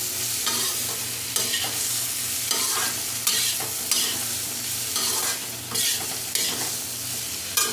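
Metal spatula stirring and scraping boiled potato chunks through onion-tomato masala in a kadhai, in uneven strokes about once a second, over a steady sizzle of frying.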